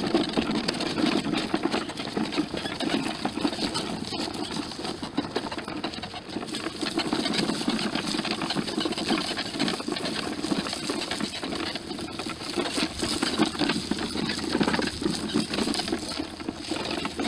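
Small wagon pulled by a harnessed dog, rolling and rattling over dry leaves and grass, with a steady crunching crackle and a low rumble under it.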